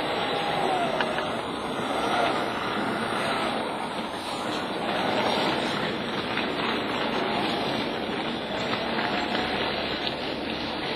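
A model railway diesel shunter's small electric motor whines as it hauls a short train of open wagons and a brake van along the track. The whine wavers in pitch over a steady rolling rattle of wheels on the rails.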